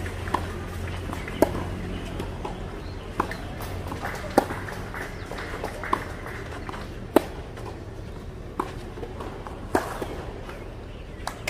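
Tennis rally on a clay court: sharp racket-on-ball hits and ball bounces coming about every one to one and a half seconds, over steady outdoor background noise.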